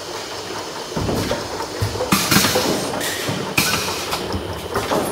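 Bottle filling and heat sealing machine line running: plastic bottles clattering along the conveyor and the mechanism knocking and clicking, with a short hissing burst about two seconds in and another past the middle.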